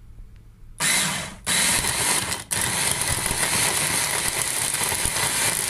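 Electric mini chopper (a motor unit on a bowl) blending soaked dates into a strawberry and coconut milk mixture: two short pulses about a second in, then a continuous run.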